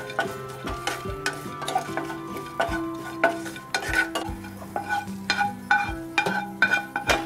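Pumpkin and cucumber seeds frying in ghee in a nonstick pan, stirred and scraped with a wooden spatula in repeated quick strokes. Background music plays underneath.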